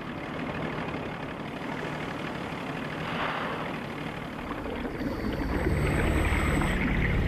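Boat engine running under a hiss of wind and water. About five seconds in, music with low held tones fades in.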